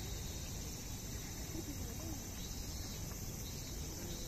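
Insects chirring steadily in a high, even drone, with faint distant human voices about a couple of seconds in.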